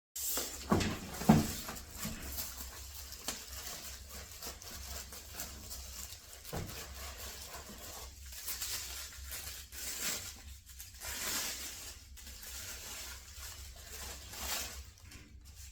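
Rustling, crinkling and tearing of statue packaging as it is handled and opened, with two sharp knocks about a second in and scattered small clicks.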